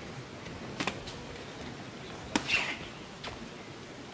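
Sharp smacks of boxing gloves landing, a quick pair about a second in and a louder one a little past halfway, with a fainter one later, over steady arena crowd noise.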